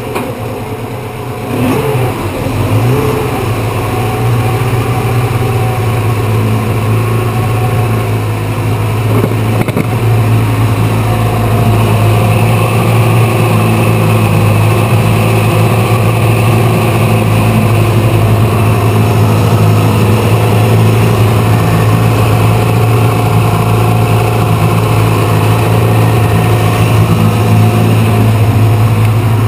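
1996 Mercury 40 hp outboard motor running in a test tank, its propeller churning the water. It settles into a steady run about two seconds in and gets louder around ten seconds in as the throttle is opened. This is a test run of the outboard after its sheared drive shaft was welded.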